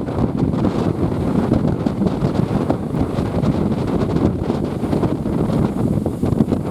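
Strong wind buffeting the microphone in gusts, over rough sea surf whipped up by the approaching Typhoon No. 14.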